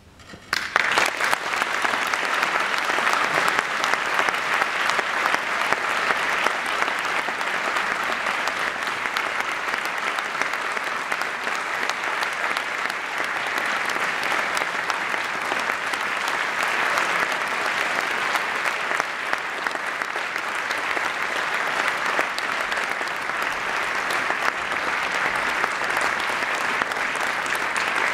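Audience applause breaking out suddenly about half a second in and then going on steadily: many hands clapping.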